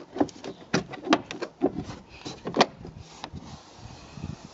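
Plastic interior trim around a car's rear window being pressed and tapped into place by hand: a rapid series of sharp clicks and knocks for about three seconds, then it goes quieter.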